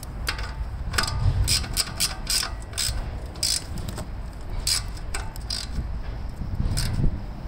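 Hand socket ratchet clicking in short, uneven runs of strokes as a fitting is tightened into the underside of a fuel tank.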